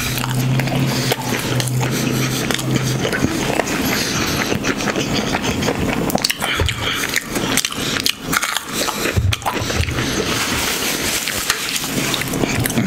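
Close-miked chewing of a mouthful of chicken sandwich, with wet smacks and small crackling clicks throughout. A low steady hum sounds during the first three seconds.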